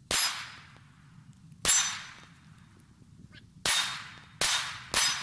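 Five shots from a Hi-Point C9 9mm pistol, fired at an uneven pace: two slow single shots, then three quicker ones near the end, each with a short echoing tail.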